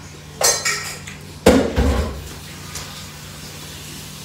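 Close-up eating sounds of fried chicken meat being bitten and pulled off the bone: two short, loud bursts in the first two seconds, the second the louder.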